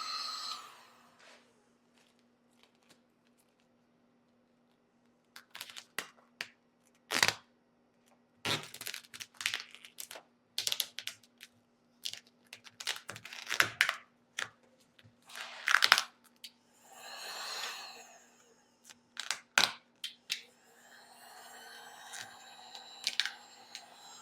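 Vinyl wrap film crackling and tearing in short bursts as it is pulled and stretched by hand over a car door handle. A heat gun's steady whine cuts off just after the start, and a steady hum comes back near the end.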